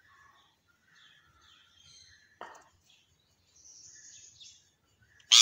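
Rose-ringed parakeet making faint, scattered chirps and chatter, with a short sharp click about two and a half seconds in and a loud sudden burst near the end.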